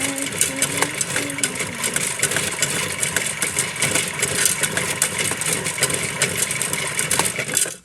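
Washmatic toy washing machine running: its small motor whirring steadily with a dense, rapid plastic rattle, cutting off abruptly near the end.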